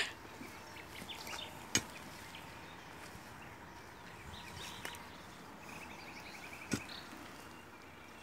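Two sharp wooden knocks, about five seconds apart, as a wooden fence stake is worked by hand, over a faint outdoor background. A short, rapid high trill comes a little before the second knock.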